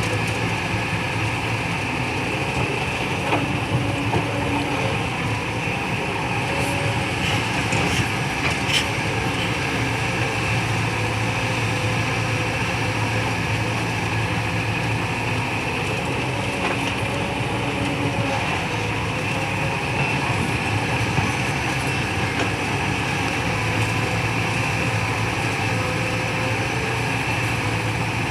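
Excavator's diesel engine running in a steady drone, with a few light knocks.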